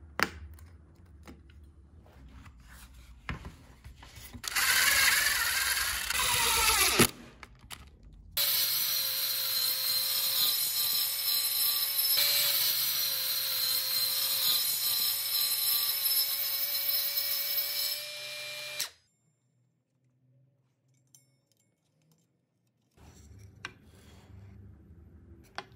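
Cordless circular saw motor: a short run that winds down in pitch, then after a pause a steady run of about ten seconds that cuts off suddenly. Faint clicks of handling the saw and boards near the end.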